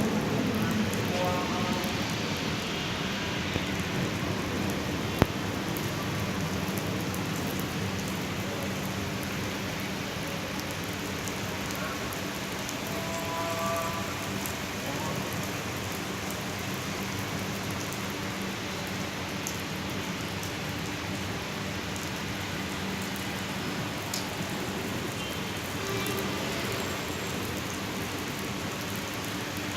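Steady rain falling and pattering on surfaces, with one sharp click about five seconds in.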